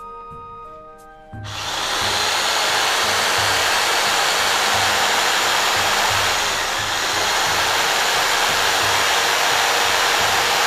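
Black & Decker 380 W jigsaw switched on about a second and a half in and running steadily, loud and even.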